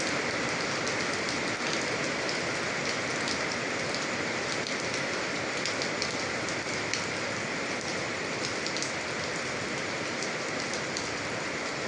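Steady rain falling on a surface, an even hiss with many small distinct drops ticking through it.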